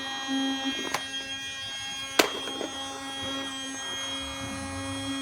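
Casdon Dyson toy cordless vacuum running, its small battery motor giving a steady, even hum, with a sharp click a little after two seconds.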